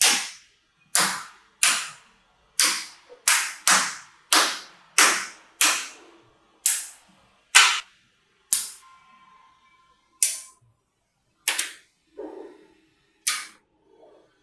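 Bars of mini neodymium magnetic balls snapping onto one another and onto the table: a string of sharp clacks, one every half second to second, thinning out toward the end, with one softer knock near the end.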